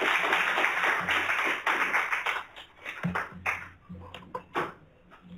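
Audience applauding. The applause thins out to a few scattered claps about three seconds in and stops near the end.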